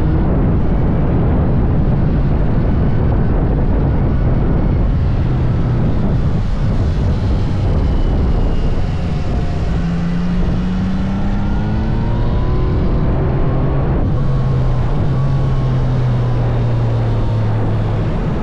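Yamaha MT-09 SP's inline three-cylinder engine pulling on the move, its pitch rising through the revs around the middle and holding steady near the end, over a constant rush of wind noise.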